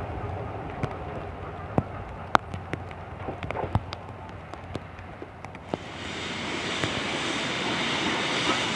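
Steam locomotive C57 1 approaching with its train. Scattered sharp clicks sound over a low rumble, then about six seconds in a broad rushing hiss of steam and train noise sets in and grows louder.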